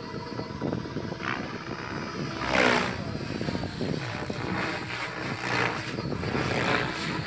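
Radio-controlled model helicopter whirring as it flies aerobatics, its rotor blades swishing through the manoeuvres; about two and a half seconds in, a loud whoosh with a falling pitch.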